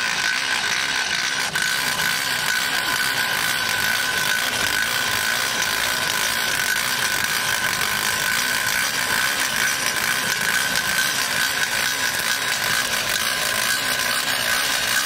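Electric mixer grinder running steadily with a steady high whine over a dense whirring noise.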